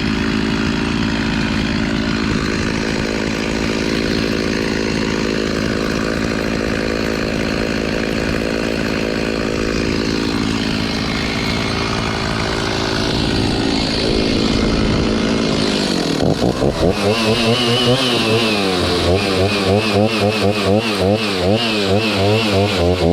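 Chainsaw running and cutting through a tree, its engine note steady at first. About two-thirds of the way in, its pitch and loudness start to rise and fall in a quick, regular rhythm.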